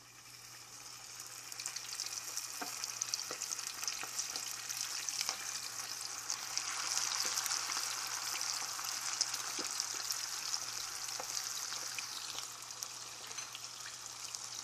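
Flour-coated stuffed chicken wing deep-frying in hot oil in a pot: a hissing sizzle full of small crackling pops. It swells over the first couple of seconds as the wing goes into the oil, then holds steady.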